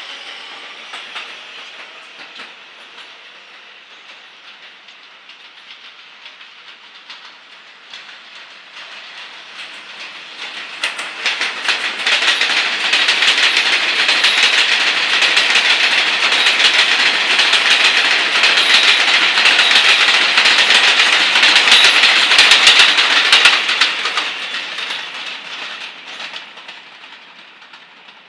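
New York City Subway 7 train of R188 cars passing close on the elevated track, its wheels clattering over the rail joints. It is faint at first, grows loud about ten seconds in, holds for about twelve seconds, then fades away.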